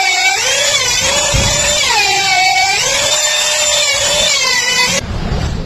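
Electric power tool motor whining loudly, its pitch dipping and recovering several times as it is loaded, then cutting off suddenly about five seconds in.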